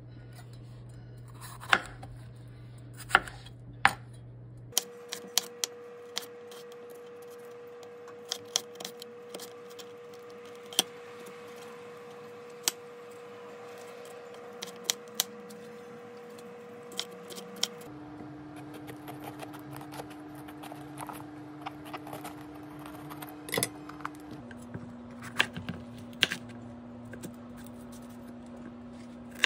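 Chef's knife slicing bell peppers on a cutting board: irregular sharp clicks as the blade cuts through and strikes the board. A faint steady hum runs underneath.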